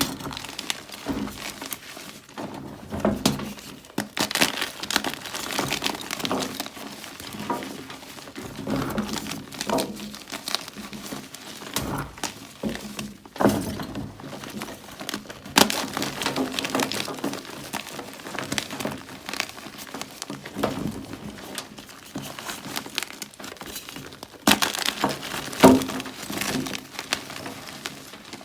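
Close-miked crunching of compressed gym chalk blocks (magnesium carbonate) being bitten and chewed. Irregular sharp crunches are followed by dry, crumbly crackling, with some of the loudest crunches near the end.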